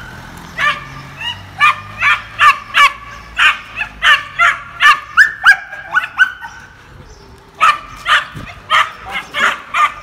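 Young puppies barking in rapid, high-pitched yaps, a few a second, with a break of about a second and a half after the middle before the yapping starts again; excited barking at a rag tug toy.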